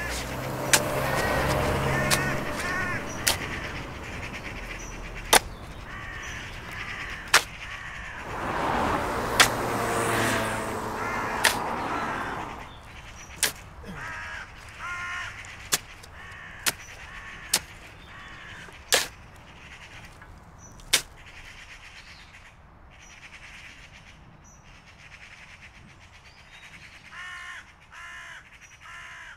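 Ravens calling again and again in hoarse, repeated caws. Over them come sharp clicks about every two seconds, the loudest sounds, and two swells of rushing noise in the first half.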